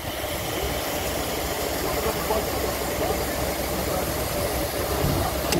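Steam hissing steadily from standing narrow-gauge steam locomotive 609.76, over a steady low rumble.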